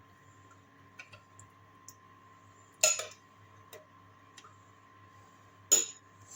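A metal spoon clinking and knocking against a plate while stirring porridge: a handful of separate light taps, with two louder knocks, one near the middle and one near the end, over a faint steady hum.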